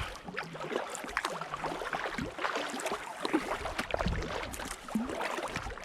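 Water splashing and lapping around a kayak being paddled on open lake, an irregular crackle of small splashes and drips from the paddle and hull.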